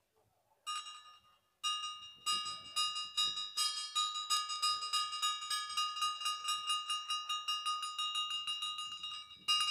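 Small Buddhist ritual bell: struck twice about a second apart, then rung rapidly at about four strokes a second with a steady high ringing.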